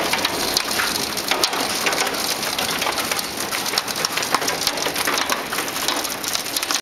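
Hail and rain pelting down: a steady dense crackle of small impacts.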